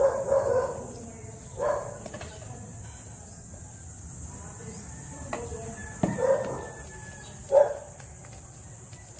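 A dog barking in about four short bursts with pauses between them, over a steady low background hum.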